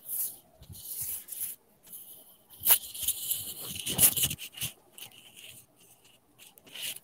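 Irregular scratchy rustling and rubbing noises close to the microphone, with a sharp click about 2.7 seconds in.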